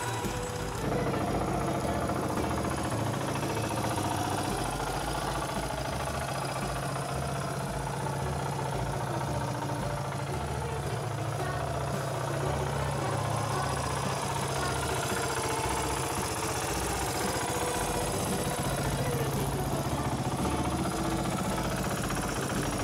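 Suzuki DR350S single-cylinder four-stroke engine idling steadily, freshly rebuilt and just started for the first time.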